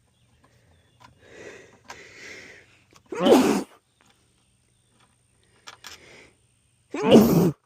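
A man sneezing twice, about four seconds apart, each loud sneeze led by short breaths drawn in.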